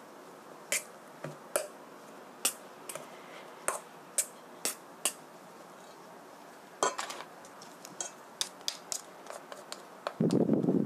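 Metal potato masher clinking and scraping against a stainless steel bowl as boiled potatoes are mashed, in irregular sharp clicks. Near the end comes a louder, duller scraping about a second long.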